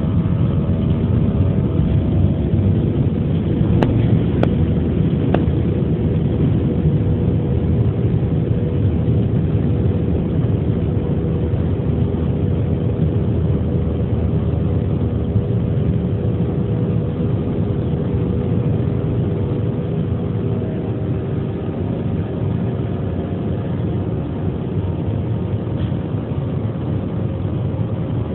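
Roar of an Airbus A320-family airliner's turbofan engines at takeoff thrust, heard from inside the cabin next to the engine, as the jet leaves the runway and climbs. A steady roar with a whining fan tone, easing slightly toward the end, and a few faint clicks about four to five seconds in.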